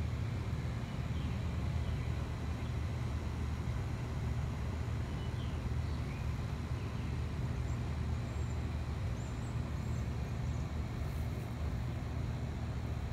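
Steady low outdoor rumble with no clear start or stop, and a few faint high chirps scattered through it.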